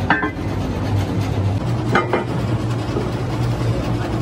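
Hydraulic press motor running with a steady low hum, while a steel truck rim plate clanks against the press bed with a ringing metallic knock near the start and again about two seconds in.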